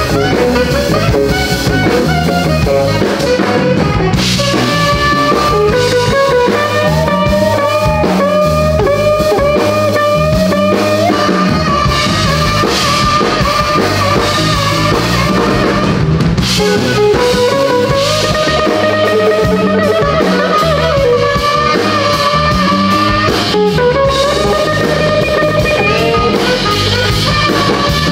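Live blues band playing an instrumental passage: drum kit and bass keeping a steady groove under a lead line with pitch bends.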